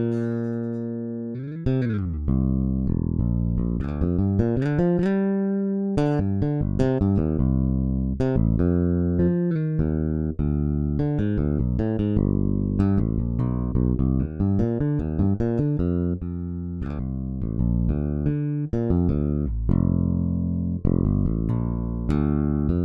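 Toontrack EZbass virtual electric bass playing a gospel MIDI pattern: a busy run of plucked notes with a few held notes and slides between pitches.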